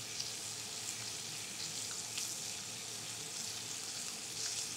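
Bison New York strip steaks searing in butter in a cast-iron grill pan, one propped on its fatty edge: a steady sizzle with a few small pops scattered through it.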